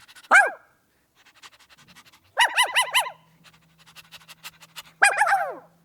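Dog barking: one bark, then a quick run of about six barks, then one more bark near the end, each falling in pitch. Soft quick panting fills the gaps between.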